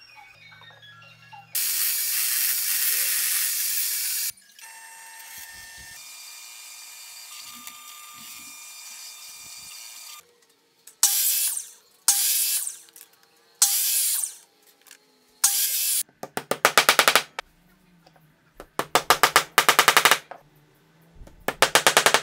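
Power tools working wood in a string of bursts: a loud sustained run, a quieter steady run, then four short cuts of a miter saw through a wooden dowel, followed by two runs of fast rattling pulses near the end.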